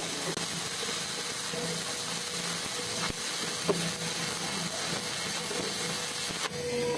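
Stick welding: the electrode's arc burning with a steady hiss.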